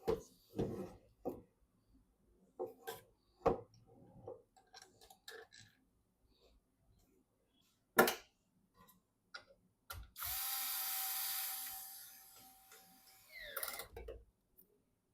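Clicks and knocks of PC parts and small hardware being handled, with one sharp knock about eight seconds in. Then a small power tool whirs steadily for about three seconds and winds down.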